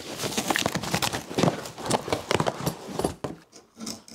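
Handling a cardboard parts box: a quick, irregular run of knocks, thumps and rustles that eases off after about three seconds.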